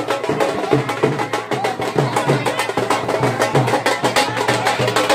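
Drummers playing strapped drums in a procession: fast, dense, loud strokes over a repeating lower beat.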